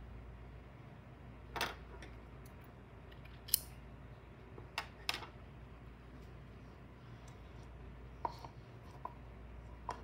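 Scattered tabletop handling noises over a steady low hum: a few sharp snips and clicks of scissors cutting yarn and being set down, then near the end light knocks and clinks as a plastic cup of glue is picked up with a wooden stick in it.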